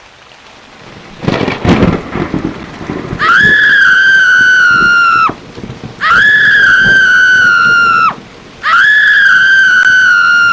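Thunderstorm: rain with a loud thunderclap about a second in, then three long high-pitched wails at one steady pitch, each about two seconds long.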